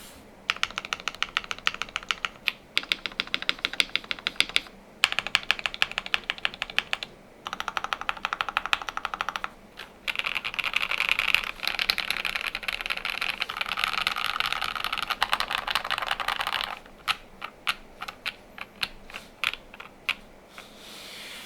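Typing on a KBD67 Lite mechanical keyboard with a polycarbonate plate and lubed, filmed JWICK Black linear switches. Keystrokes come in bursts with short pauses, run into a long, fast, unbroken stretch in the middle, then thin out to single, spaced key presses near the end.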